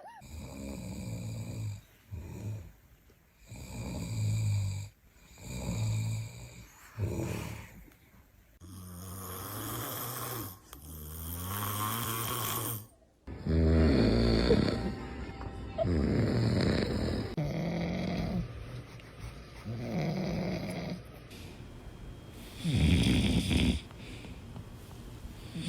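An animal snoring, one snore every second or two, in several stretches; the snores get louder and longer from about halfway.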